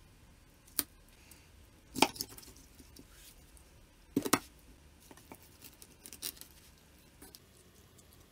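Kitchen knife and herring on a plastic cutting board: a few sharp knocks, the loudest about two seconds in and a double one about four seconds in as the blade chops through behind the head. Softer clicks and handling noises follow as the fish is worked by hand.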